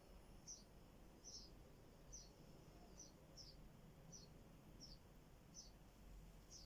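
Faint high-pitched chirping: a short, slightly falling chirp repeated about nine times, roughly once every three-quarters of a second, over a low steady background hum.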